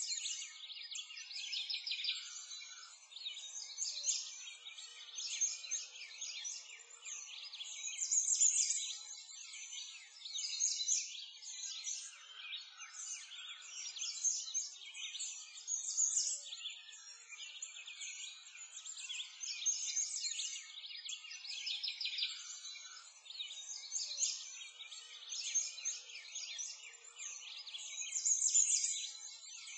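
A chorus of small songbirds chirping and trilling without a break, all high-pitched, with no low sounds under it.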